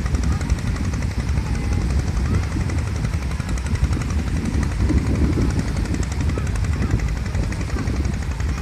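Wind buffeting the phone's microphone on an open beach: a constant, uneven low rumble.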